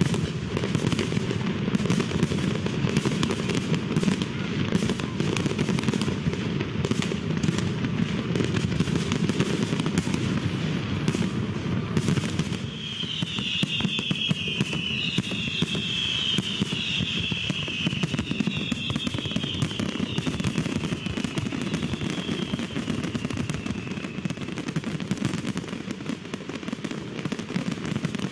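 Aerial bomb fireworks going off in a continuous barrage of sharp bangs and crackle over a low rumble. About halfway in, several falling whistles follow one another.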